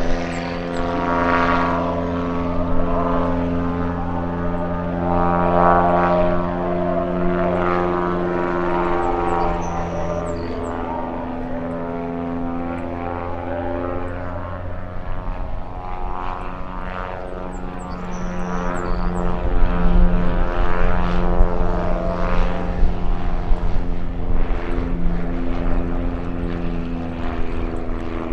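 Single-engine piston light airplane's engine and propeller running at high power through a takeoff and low passes, one steady droning note that bends in pitch now and then and grows louder about two-thirds of the way in as the plane comes closer.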